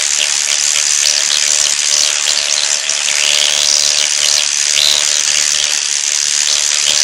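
Dermapen electric microneedling pen running with a steady buzz as its needle tip is worked over the skin of the nose.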